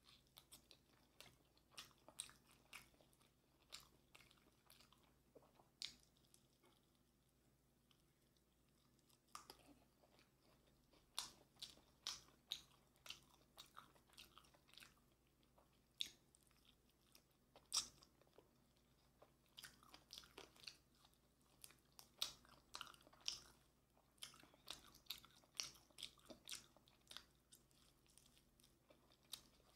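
Chewing and biting into yangnyeom chicken, Korean fried chicken in a sticky sweet-spicy glaze. It is a string of short, sharp crunching clicks, only a few in the first ten seconds, then coming quickly one after another.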